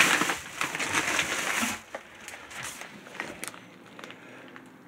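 Plastic bag of parboiled rice rustling and crinkling as it is handled, loudest for the first two seconds, then a few lighter crackles.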